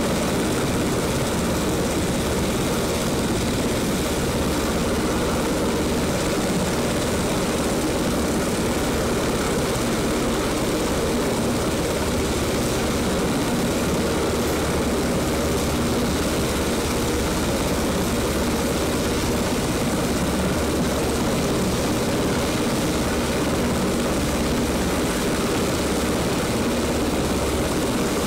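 UH-60 Black Hawk helicopter running steadily on the ground with its main rotor turning. Its twin turboshaft engines and rotor make an even, unbroken noise.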